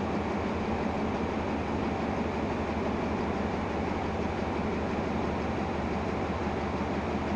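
Diesel-electric locomotive standing at the platform with its engine idling: a steady low hum under an even rush of cooling fans and blowers.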